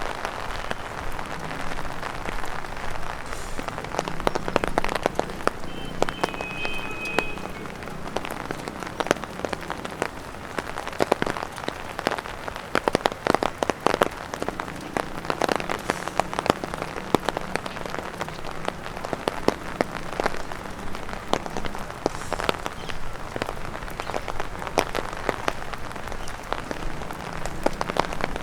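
Rain falling, with raindrops tapping irregularly on an umbrella overhead, the taps coming thickest in stretches over a steady patter.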